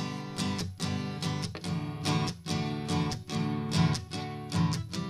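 Background music: a strummed guitar playing without singing.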